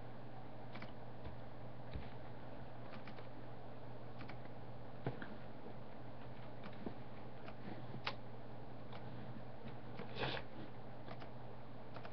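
Room tone with a steady low hum and hiss, broken by scattered faint clicks. A short, louder rustle comes about ten seconds in.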